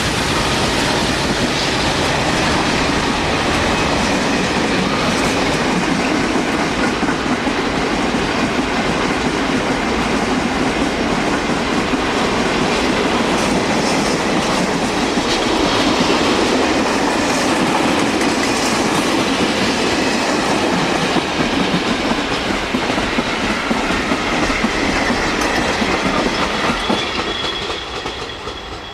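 Freight train wagons rolling past with a steady rumble and wheel clickety-clack over the rail joints, dropping away near the end as the train passes.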